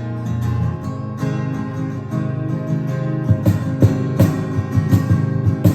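Song intro on guitar, sustained chords, with a steady drum beat coming in about three and a half seconds in.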